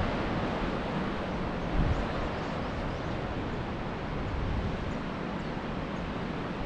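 Steady rush of sea surf and wind, with gusts buffeting the microphone in low thumps.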